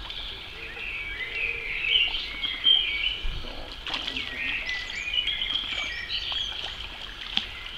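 Several songbirds chirping and warbling throughout, with a few short sharp noises among them.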